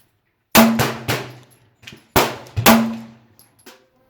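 Springfield XD9 9mm pistol firing Magtech rounds: a string of sharp gunshots in quick succession, each with a ringing tail.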